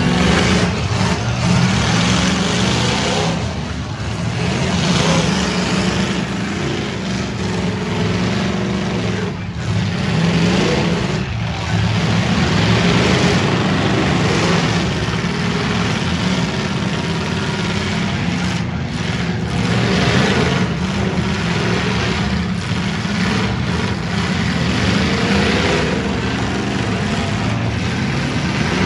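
Several V8 demolition derby cars' engines running and revving together in a loud, continuous rumble.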